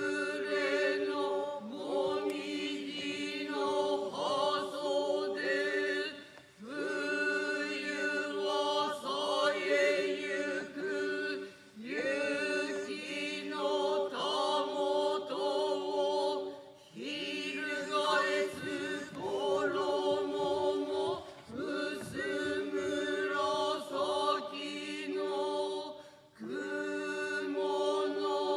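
Kanze-school Noh chant (utai) sung in unison, without instruments, by a small kneeling jiutai chorus of men's and women's voices. The phrases are drawn out on long, wavering notes, with a few short breaks for breath between them.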